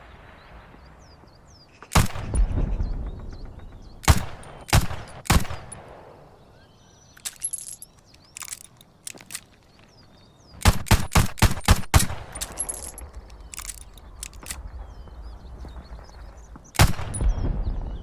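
Top-break revolver firing: a single shot with a long echoing tail, then three shots in quick succession, a rapid string of about six shots, and one more shot near the end. Lighter metallic clicks of the gun being handled come in the pause between the groups.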